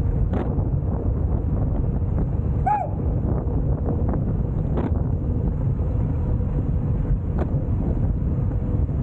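Steady low rumble of wind buffeting the microphone of a camera moving along with an electric scooter, with a few brief clicks and rattles and one short chirping squeak about three seconds in.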